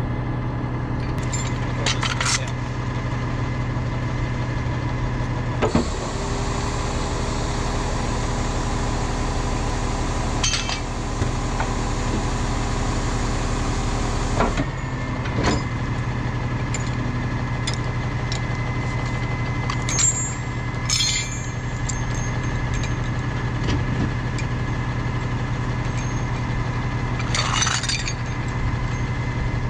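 Tow truck's engine idling steadily, with scattered metallic clinks and knocks. A broad hiss starts about six seconds in and stops suddenly about nine seconds later.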